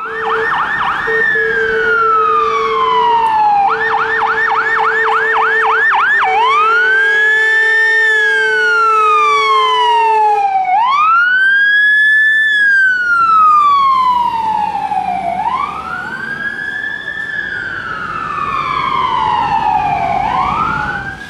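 Emergency vehicle's electronic siren sounding on alarm, switching between a fast yelp and a slower rising-and-falling wail. A steady lower tone, broken briefly a few times, sounds beneath it for about the first ten seconds.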